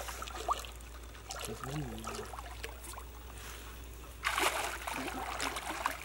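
Water splashing and dripping, with a louder burst of splashing starting about four seconds in.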